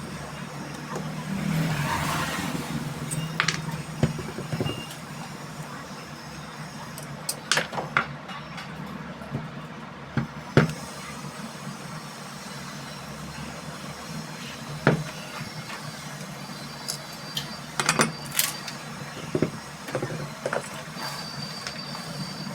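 Scattered sharp clicks and taps of small metal fan parts and tools being handled on a workbench, over a steady low hum.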